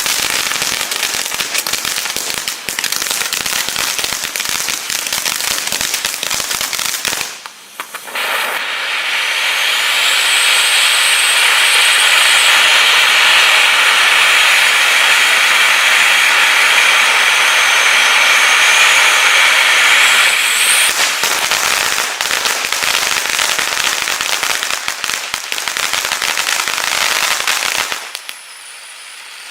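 Dos Gringos 'Crime Stopper' firework fountain going off. It gives a dense crackling spray for about seven seconds, a brief lull, then a steady hissing rush with a faint high whistle over it, then dense crackling again until it dies out near the end.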